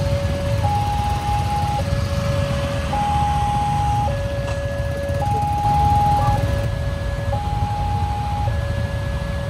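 WANTECH railway level-crossing warning alarm sounding its two alternating electronic tones, high then low, each held about a second and repeating steadily: the signal that a train is approaching and the barrier is closed. Underneath is the low rumble of many motorcycle engines idling.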